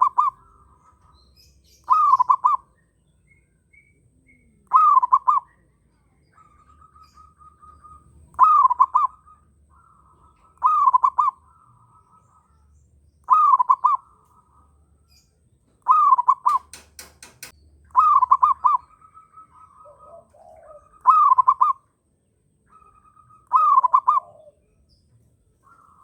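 Zebra dove (perkutut) in breeding condition, cooing its phrase over and over, about once every two and a half seconds. Other birds call with quieter trills between the coos, and a quick run of clicks comes about two-thirds of the way through.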